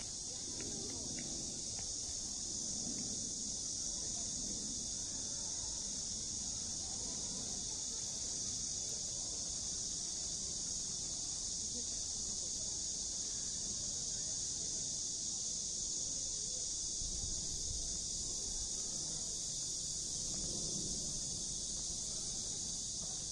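A dense chorus of insects, cricket-like, keeping up a steady high-pitched hiss without a break.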